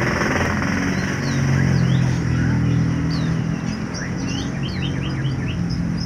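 Domestic canary chirping and singing in short, quick high notes, with a fast run of notes about three and a half seconds in. Underneath is a loud, low, engine-like hum.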